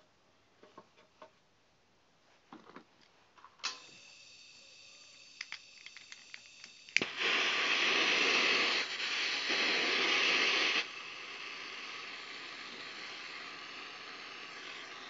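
Scattered small clicks as a lighter is worked at the nozzle of a homemade hydrogen generator's burner, then a sharp click about seven seconds in and a loud hiss of gas for about four seconds, dropping to a quieter steady hiss. A steady high whine runs underneath from about a quarter of the way in.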